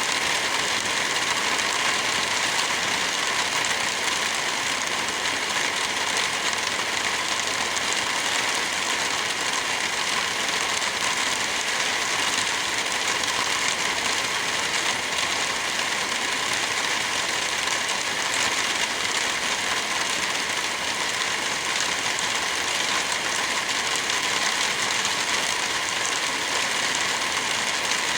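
Heavy rain falling steadily, an even hiss of drops with no breaks or changes.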